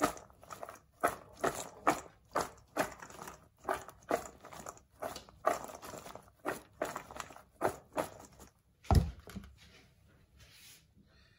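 Chopped raw salad (iceberg lettuce, carrot, cucumber and cherry tomato) tossed by hand in a stainless steel bowl: a quick run of crisp rustling swishes, about two a second. A single low thump comes about nine seconds in.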